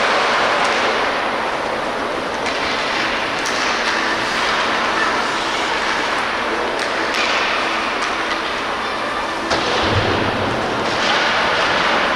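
Ice hockey play on the rink: steady scraping hiss of skate blades on the ice, with a few sharp clacks of sticks and puck.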